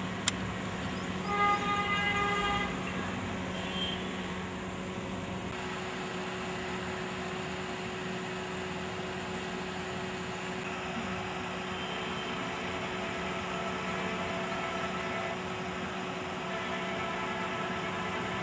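A vehicle horn sounds once for about a second and a half, a little over a second in, over a steady low hum; fainter horn-like tones drift in again in the second half.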